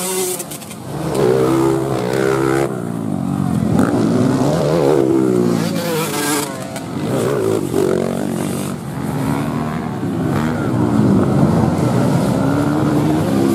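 Dirt-bike engines racing on a dirt track, revving up and dropping back again and again as the riders accelerate and shift.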